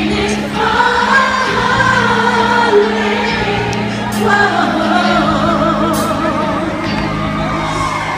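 Live pop music over a concert sound system, with a singer holding long notes with a wide vibrato over a steady backing track.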